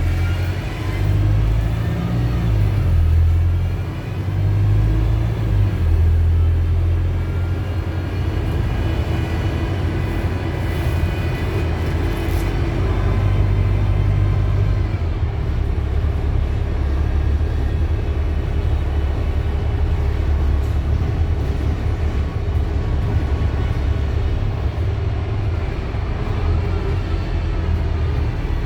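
Wright StreetDeck double-decker bus with a Mercedes OM934 four-cylinder diesel, running under way: a heavy low rumble with a whine of several pitched tones above it that slowly rise and fall with speed. The bus is known to be making a strange noise.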